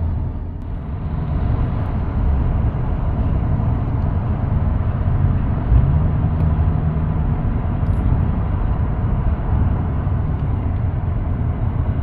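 Steady low rumble of road and engine noise inside a moving car's cabin. About halfway through, a low hum rises in pitch and holds for a second or so.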